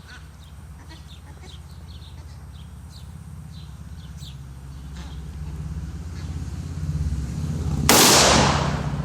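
A single rifle shot from a 7.35 mm Carcano firing a hunting round, about eight seconds in, trailing off over roughly a second.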